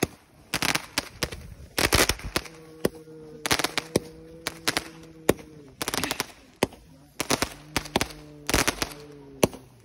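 Fireworks going off in rapid volleys of sharp bangs and crackles, some close together like a repeater firing. Twice a steady low hum runs under the bangs for about three seconds.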